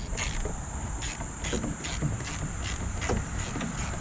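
A 1/4-inch drive ratchet clicking in short runs as it backs a bolt out with a 5/16-inch deep-well socket on an extension. There is a steady high-pitched tone and a low rumble underneath.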